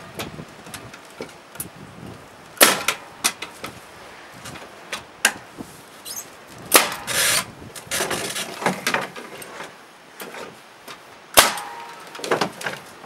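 Irregular wooden knocks and clatter of hand tools and clamps being handled on a timber shed-base framework, with a few sharp, louder impacts and a brief hiss-like burst in the middle.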